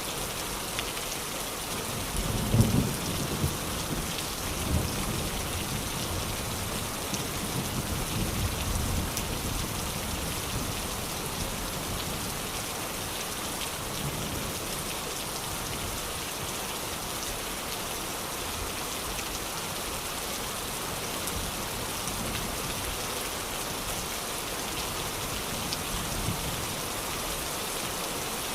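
Steady rain falling and pattering on surfaces, with several low rumbles of thunder in the first ten seconds, the loudest about two and a half seconds in.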